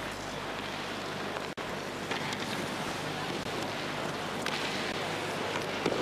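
Steady murmur of an ice hockey arena crowd under heavy VHS tape hiss. The sound drops out for an instant about one and a half seconds in.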